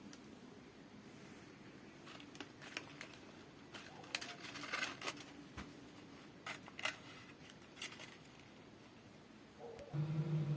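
Faint scattered clicks and rustles of hands handling a homemade chimney brush, a plastic bottle fitted with bristle tufts. Near the end a steady pitched whine starts suddenly.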